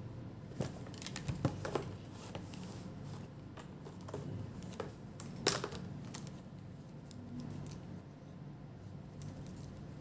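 Scattered light clicks and taps from a digital multimeter and its test probes being handled and set down on a bare laptop motherboard, the sharpest about halfway through, over a steady low hum.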